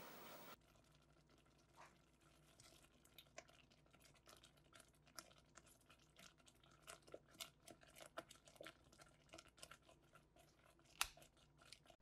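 Faint, irregular clicks and crackles from a saucepan of peach glaze being whisked on the stove, with one sharper click about 11 seconds in.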